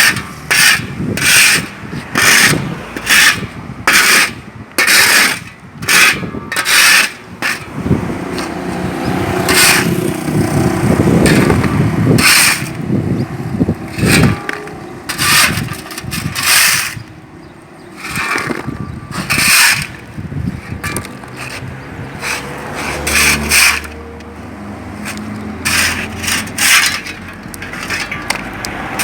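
A shovel scraping and scooping construction rubble again and again, each stroke a short, harsh scrape, often less than a second apart. Around the middle comes a longer, lower rumbling stretch of rubble shifting.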